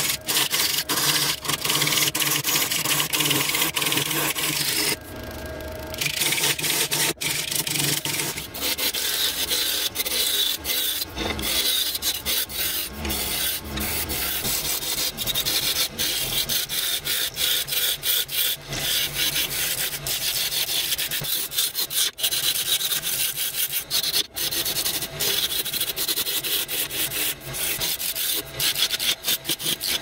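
Turning tool cutting a spinning wooden blank on a wood lathe: a steady rasping hiss as shavings come off. The cut eases off briefly about five seconds in.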